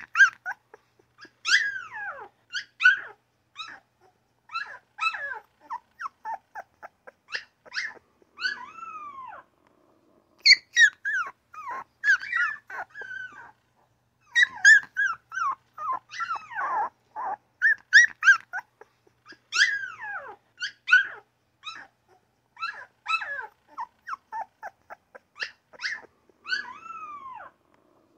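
Newborn puppies 'talking' back and forth: a steady stream of short, high-pitched whines, squeaks and yips, several sliding down in pitch, with a short pause about a third of the way through.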